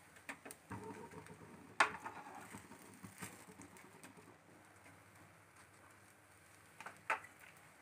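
Faint kitchen handling sounds: a few sharp clicks and taps of a steel spoon and stove against a nonstick dosa tawa, the loudest about two seconds in and another near the end. A soft low sound runs through the first two seconds or so.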